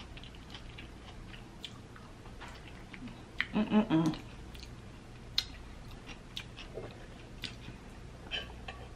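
Close-up chewing and mouth sounds: scattered soft wet clicks and smacks, with a short voiced hum about three and a half seconds in.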